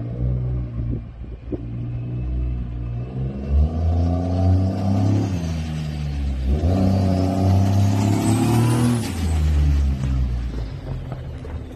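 Lifted pickup truck's engine revving as it drives past, the pitch climbing, easing off about halfway through, then climbing again before falling away near the end. A high whistle rises with the second rev.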